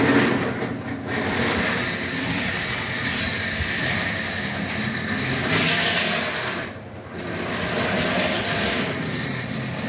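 Model train running on the layout's track: wheels rolling on the rails with the motor running. A high steady whine comes in about seven seconds in, after a brief dip in the sound.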